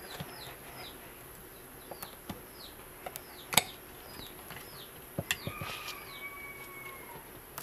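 A bird's repeated short, falling chirps in the background, with a long, slightly falling whistle near the end. Over them come a few sharp clicks and taps from handling the circuit board, the loudest about three and a half seconds in.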